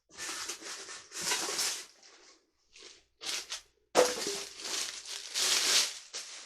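Packaging crinkling and rustling in irregular bursts as stand-mixer parts are unpacked, with a sharp knock about four seconds in that rings briefly.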